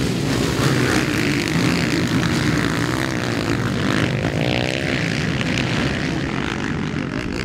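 Motocross sidecar outfits' engines racing and revving, the pitch rising and falling, with one rev climbing about halfway through.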